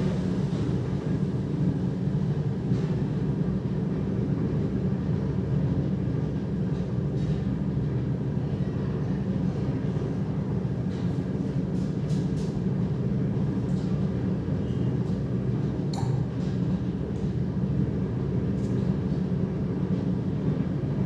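A steady low hum, even throughout, with a few faint light clicks.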